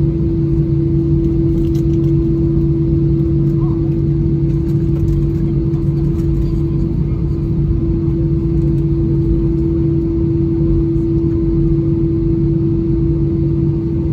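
Steady drone inside a jet airliner's cabin on the ground before takeoff: a constant low rumble with a droning hum that holds one pitch throughout, not the rising roar of a takeoff roll.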